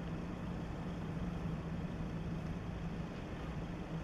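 Steady low drone of an inland cargo ship's diesel engine, one constant tone, under a rushing hiss of wind on the microphone.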